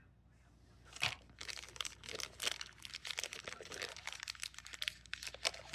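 Thin plastic wrapper crinkling and crackling in irregular bursts as a small blind-bag figure is unwrapped by hand, starting about a second in.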